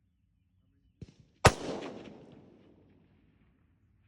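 A semi-automatic rifle fires a single shot about a second and a half in, the report trailing off over a second or more. A second shot cracks right at the very end.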